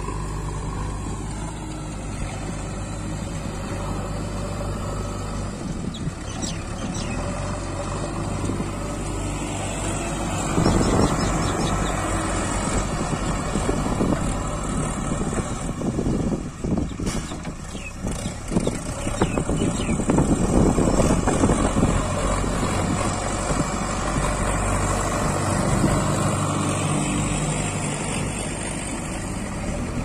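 JCB backhoe loader's diesel engine running steadily, then working harder from about ten seconds in as the front loader bucket pushes soil, easing back again toward the end.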